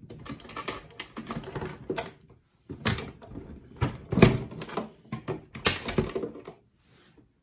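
Hands handling a Dual 701 turntable's metal chassis in its plinth: an irregular run of clicks, knocks and light rattles, the loudest about four seconds in, stopping about a second before the end.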